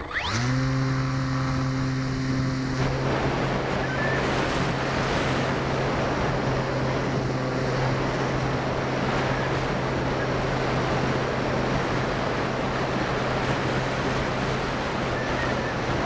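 Onboard sound of an ASW 15 model plane's motor and propeller spinning up suddenly, then running at a steady pitch as the plane climbs, with loud wind rush over the camera's microphone. After about three seconds the motor's higher tones drop away, leaving a steady hum under the wind noise.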